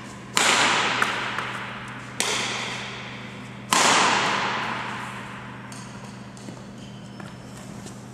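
Badminton racket striking a shuttlecock three times in a rally, sharp hits a second and a half to two seconds apart, each ringing on in the echo of a large sports hall. Afterwards a few faint taps and footsteps on the wooden court floor over a low steady hum.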